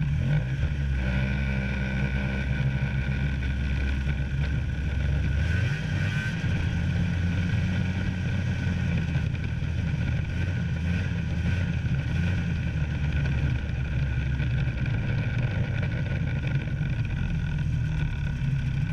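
Snowmobile engine running steadily, its low note shifting about five seconds in.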